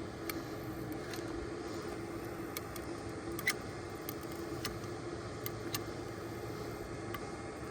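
A steady hum, like traffic or a machine running, under scattered light clicks about once or twice a second, the loudest about halfway through: a caulk gun being worked to fill a cracked, leaking shingle with sealant.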